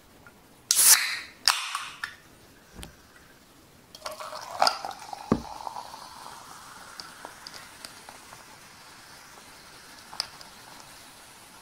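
Aluminium cola can cracked open with a sharp pop and hiss about a second in. From about four seconds in the cola is poured over ice into a glass, fizzing steadily, with a few clinks of ice.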